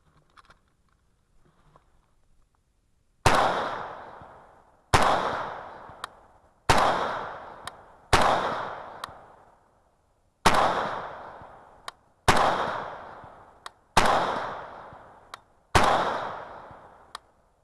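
AMD-63 AK rifle in 7.62×39 firing eight single shots at a slow, steady pace, about one every one and a half to two seconds, each shot echoing away, with small sharp clicks between some of them.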